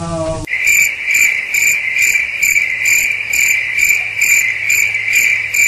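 Crickets chirping: a steady high trill with a sharper chirp pulsing about twice a second, starting abruptly about half a second in.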